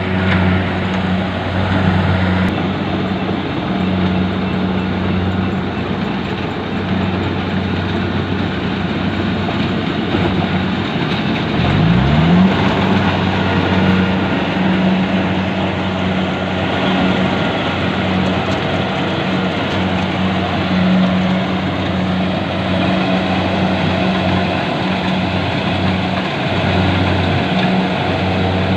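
Rice combine harvester running steadily under load with a constant engine hum, and a brief rise in pitch about twelve seconds in.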